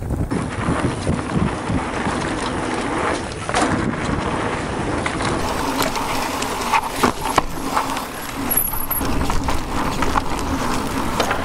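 E-mountain bike ridden down a forest trail: a steady rumble of tyres on dirt, with many short knocks and rattles from the bike over bumps.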